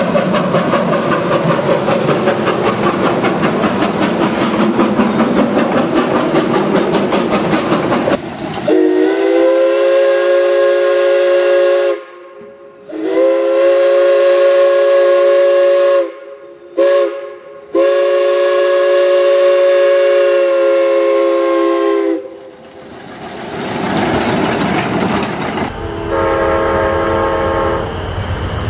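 Real steam locomotive chuffing in a fast steady rhythm, then its chime steam whistle blowing four blasts (long, long, short, long) from about 9 s. Near the end a diesel locomotive's multi-note air horn starts sounding.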